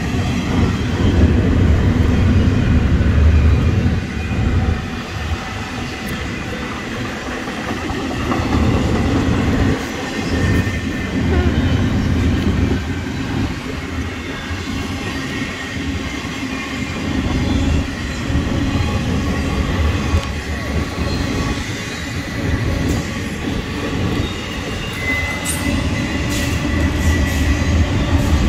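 Double-stack intermodal railcars rolling past close by: a continuous rumble of steel wheels on the rails, swelling and easing as the cars go by. A thin high wheel squeal comes in near the end.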